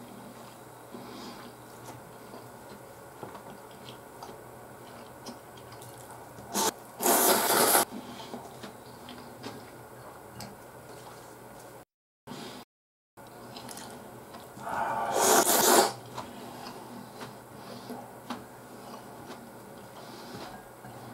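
A person eating ramen: two loud noodle slurps, each about a second long, one about seven seconds in and one about fifteen seconds in, with quiet chewing and wet mouth sounds between. The sound drops out to dead silence twice, briefly, around the middle.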